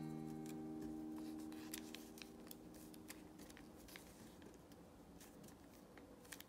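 Faint crisp ticks and crackles of colored paper being creased and pressed flat by fingers during origami folding, over a few held notes of background music that fade out in the first few seconds.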